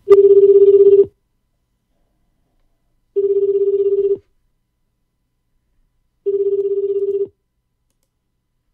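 Telephone ringback tone heard through a web softphone while an outgoing call waits to be answered: three one-second rings of a low, buzzy tone, about three seconds apart.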